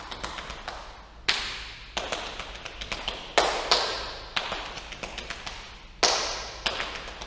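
Body-percussion rhythm played by one person: hands slapping the thighs and clapping, sharp hits in a repeating pattern with lighter taps between the strong beats. The loudest hits ring briefly in the large, hard-floored room.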